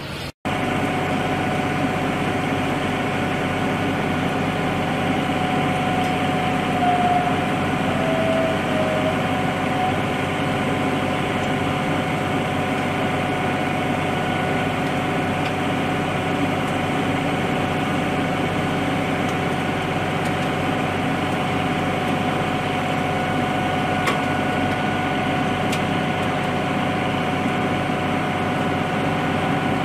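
An engine idling steadily with a constant whine over its running.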